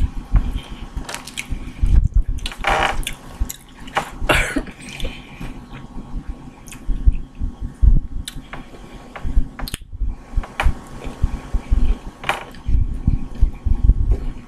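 Close-up mouth and hand sounds of eating boiled crawfish: wet smacking and sucking, with shells cracking and scattered clicks and knocks.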